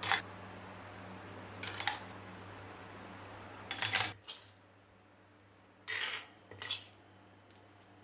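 Short clatters of a metal utensil against a stainless steel steamer basket and a stone mortar as steamed vegetables and tofu are moved into the mortar: once near the start, again about two seconds in, a quick run of knocks around four seconds in, and twice more near six and seven seconds. A low background hum stops about four seconds in.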